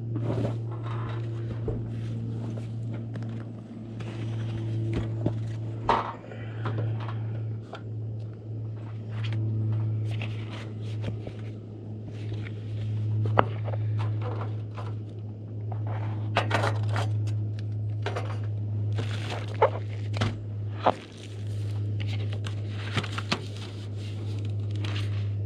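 Scrapes, clicks, knocks and crinkling of things being handled, over a steady low hum.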